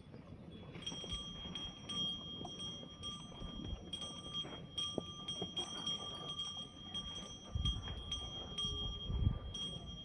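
Cattle bells jingling and clinking as the animals move, many sharp clinks over a steady ringing tone. A few low thuds near the end.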